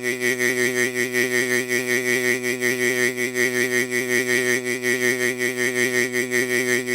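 A long, loud, rough buzzing sound at one low pitch with a fast rattling wobble, held without a break.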